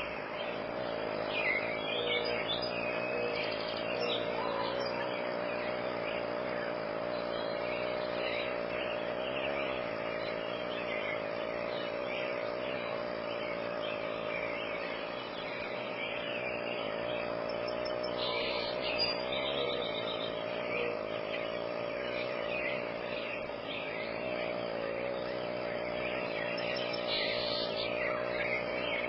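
Outdoor nature ambience: many short bird chirps over a steady, even insect drone.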